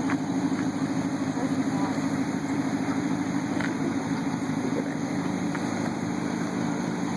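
An engine idling steadily, with an even low pulsing running throughout.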